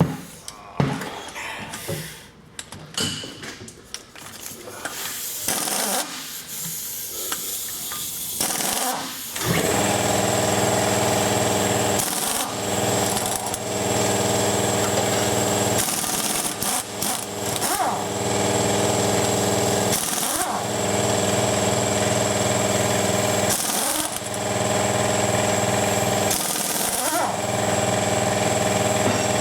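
Scattered metal clinks and knocks of hand tools, then, about a third of the way in, a loud, steady motor starts running with a hum and a high whine, dipping briefly every few seconds.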